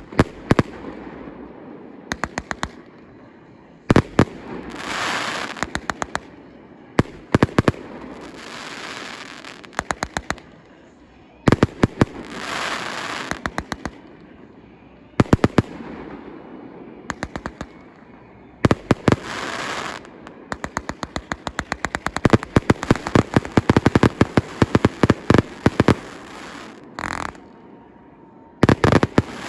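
Fireworks display going off: volleys of sharp bangs in quick succession, several a second, with hissing, crackling bursts between the volleys.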